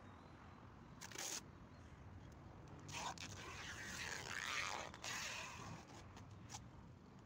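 Clear packing tape being pulled off the roll and wrapped around a person: a short rip about a second in, then a longer stretch of ripping and crinkling from about three to six seconds, with a few small clicks after.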